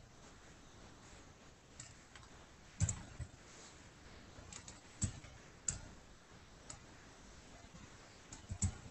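Scattered, irregular computer mouse and keyboard clicks over a faint steady background, picked up by a hangout microphone.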